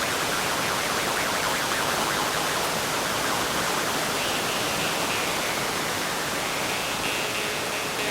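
Steady roar of a large waterfall, which drowns almost everything else. From about halfway through, the thin twanging overtones of an iron jaw harp come through faintly beneath it.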